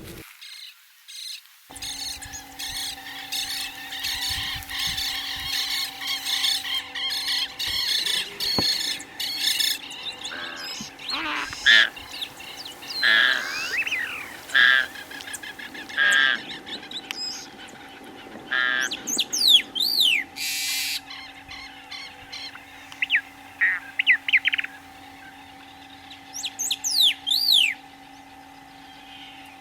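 Wetland birds calling: a dense chorus of chirps for the first several seconds, then separate calls, including quick series of falling whistled notes near the middle and again near the end, over a faint steady hum.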